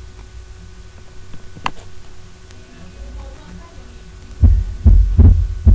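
Low hum with a faint click or two. About four and a half seconds in, a recording of normal heart sounds heard through a stethoscope starts: loud, deep beats in lub-dub pairs, the first and second heart sounds, with the second nearly split.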